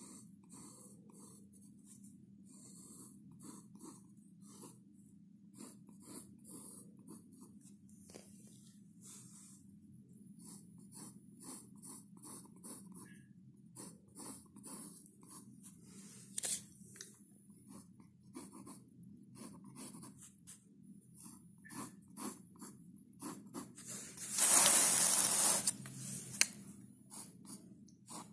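A pen scratching on paper in many short strokes as ink lines are drawn, over a low steady hum. Near the end, a louder rushing noise lasts about a second and a half.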